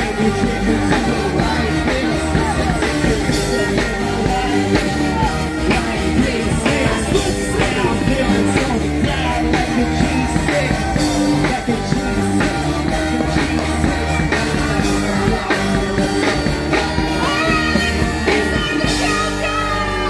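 Loud music with singing and a steady beat.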